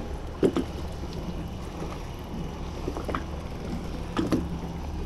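Steady low hum of a boat engine running on the river, with a few short sounds over it about half a second, three seconds and four seconds in.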